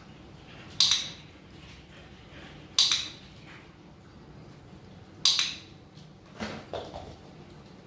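Three sharp metallic clinks about two seconds apart, like dishware or a metal bowl being knocked, each ringing briefly. Near the end comes a short, wavering animal cry, most likely the puppy whining.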